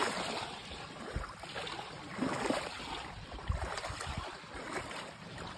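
Shallow sea water washing at the shoreline, with wind knocking on the microphone now and then.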